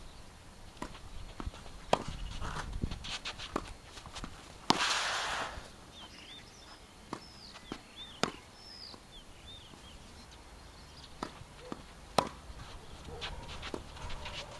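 Tennis rally: sharp racket strikes on the ball about every four seconds, with lighter ball bounces and steps in between. A short scuffing noise follows one hit about five seconds in, and birds chirp in the background.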